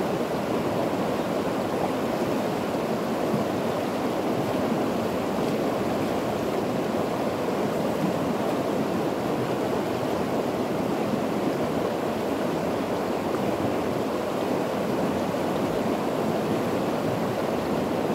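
Steady rushing of a flowing river's current, an even noise that does not change.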